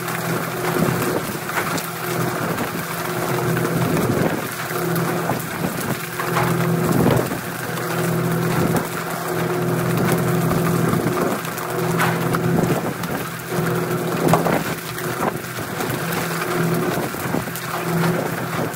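Water rushing and hissing steadily as a pole-and-line tuna boat sprays the sea, over a steady hum from the boat's engine. Irregular knocks and slaps come from skipjack tuna being swung aboard onto the deck.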